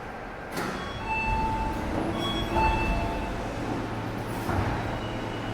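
Keio Line platform screen door chime: a few short electronic tones over the steady background noise of a station platform.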